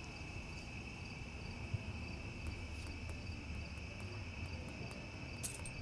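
Insects trilling steadily and high, like crickets, over a low rumble, with a short click near the end.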